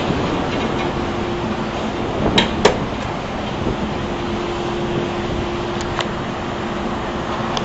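Steady rush of strong wind and heavy seas from a ship's deck, with wind buffeting the microphone. A faint steady hum runs through parts of it, and a few short knocks come about two and a half and six seconds in.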